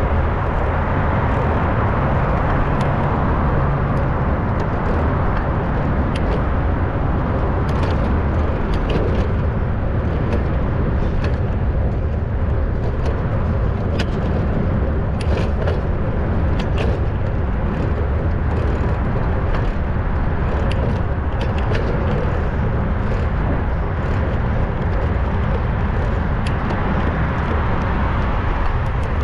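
Steady low rumble of wind and road noise from riding a bicycle through city traffic, with frequent small clicks and rattles.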